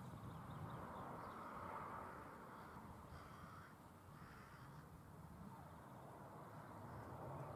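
Faint cawing of hooded crows, heard a couple of times in the first half over a quiet outdoor background.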